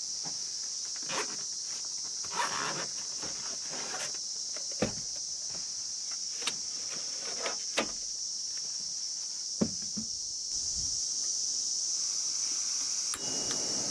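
Steady high-pitched chorus of crickets, with a scattered series of light knocks and clicks close by. A soft rushing noise joins after about ten seconds.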